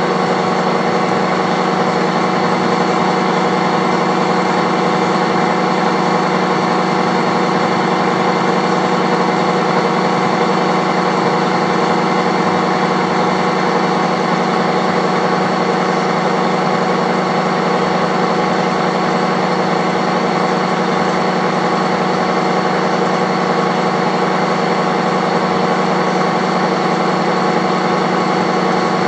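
Horizontal boring mill running at a steady speed, a steady hum with several held tones, as its rotating head turns a cutter around the worn front end of a Volvo gearbox input shaft. The shaft is being machined down so that a sleeve can be pressed on to bring it back to bearing size.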